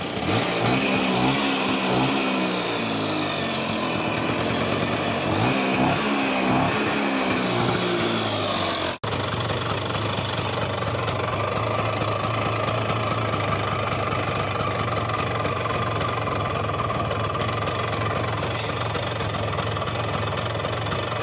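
LML Vespa Select 2 scooter's two-stroke single-cylinder engine running just after starting on the first kick, its carburettor and air filter freshly cleaned. For the first nine seconds it is revved up and down, then after a short break it runs at a steady idle.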